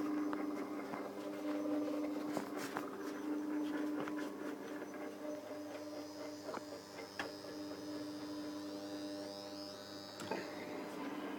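Electric motor spinning a wooden flywheel and DC gearmotor generator, running with a steady hum and scattered light clicks; the hum briefly weakens near the end.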